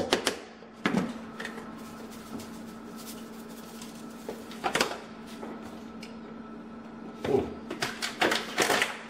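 Scattered clicks and knocks of kitchen utensils and containers being handled on a counter: a fork against a plastic tub, then a cluster of knocks near the end as things are picked up, over a steady low hum.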